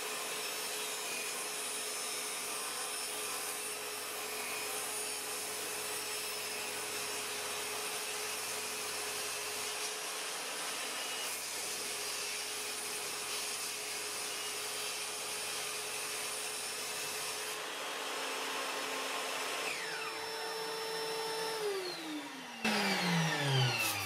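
Table saw with a freshly sharpened blade ripping along a thick hornbeam board: a steady running and cutting noise. Near the end the saw is switched off and its motor winds down in a falling whine.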